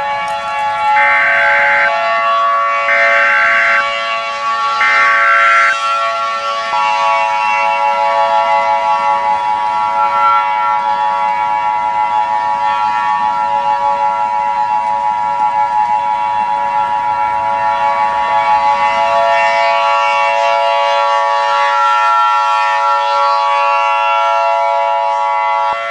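Emergency Alert System signal: three short screeching bursts of SAME header data a second apart, then the two-tone attention signal held steady for about nineteen seconds, cutting off near the end, announcing a tsunami warning. Other steady tones sound beneath it throughout.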